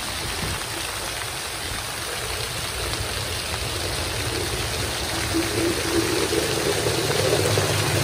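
Water jets of a floor-level splash fountain spraying up and falling back onto the wet paving and drain grates, a steady rushing patter that gets somewhat louder in the second half.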